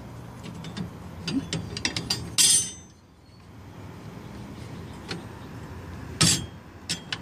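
Metal parts of a Kilduff Lightning Rod shifter clicking and clinking as its powder-coated X-brace is worked back into the housing by hand. There are two louder knocks, about two and a half seconds in and again near the end.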